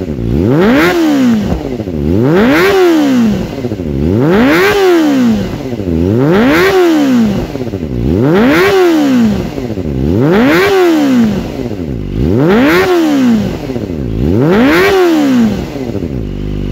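Kawasaki ZX-25R's 250 cc inline-four revved in repeated throttle blips above 10,000 rpm through an Over Racing long cylindrical aftermarket silencer. About eight revs, one every two seconds, each rising and falling in pitch.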